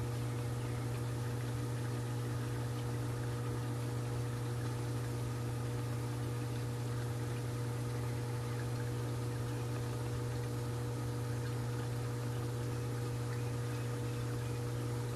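Dolphin robotic pool cleaner's motor and pump humming underwater as it crawls along the pool floor: a steady low hum with a fainter higher tone, unchanging throughout.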